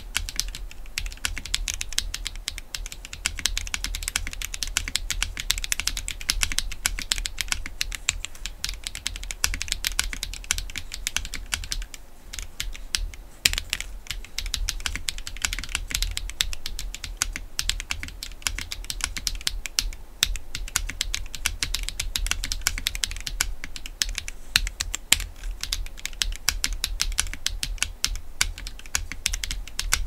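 Continuous fast typing on a KBMG68Pro (FK680 Pro) gasket-mount mechanical keyboard in an acrylic case, with prelubed Akko Lavender switches and PBT keycaps. The keystrokes come dense and quick, with a short lull about twelve seconds in.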